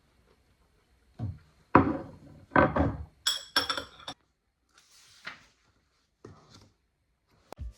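Dishes or kitchenware being handled: a series of knocks and clinks, two of them with a short bright ring, spread over several seconds with gaps between.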